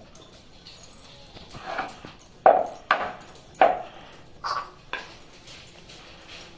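Short, sharp clinks of a steel tumbler and other metal kitchenware being handled: five or so, bunched between about two and a half and five seconds in.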